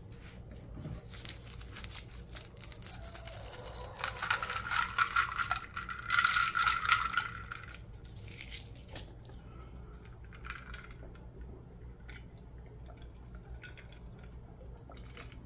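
Sweet'N Low packets being torn open and emptied into a glass of sun tea: paper rustling and tearing with scattered light clinks. A busier, louder stretch of rapid scraping and clinking comes from about four to eight seconds in.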